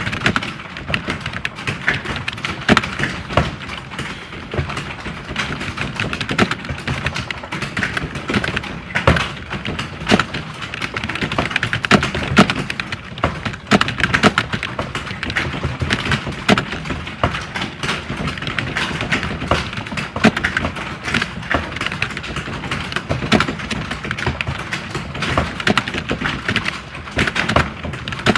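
Computer keyboards being typed on fast and without pause. The clicks are dense and overlap, like several typists working at once, as in a typing test.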